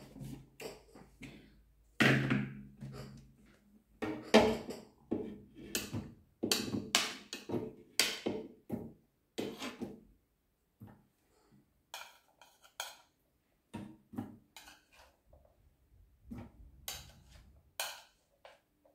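Kitchenware being handled: a plastic blender jug and a plate knocked and set down in a string of separate clacks. Near the end a utensil scrapes and taps chopped pineapple off the plate into the jug.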